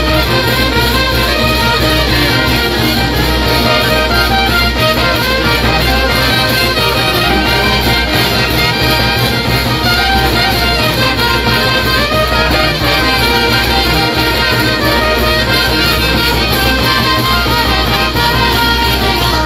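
A brass band playing live: trumpets, trombones and sousaphones with hand-clashed cymbals. The music is loud and continuous.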